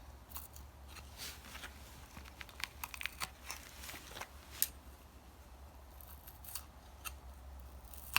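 Tape being peeled off the oil hole of a Briggs & Stratton 6 hp engine block: a run of faint crackles and ticks, thinning out after about five seconds.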